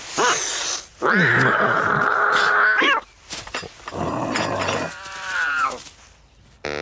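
Animal-like vocal cries from a cartoon soundtrack: a short yelp, then a long wail of about two seconds ending in a rising squeal, then a second wail that falls in pitch.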